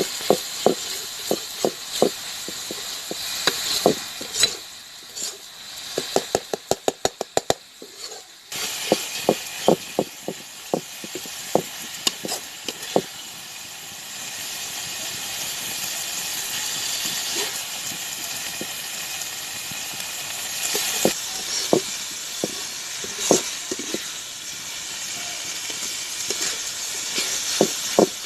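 Radish-leaf sabzi sizzling in a pan as its water cooks off, with a spatula stirring and clicking against the pan. There is a quick run of clicks about six to eight seconds in.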